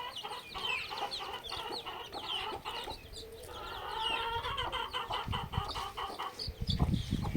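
Several domestic hens clucking and calling at once, many short overlapping calls throughout, with a few clicks and a louder low rumble near the end.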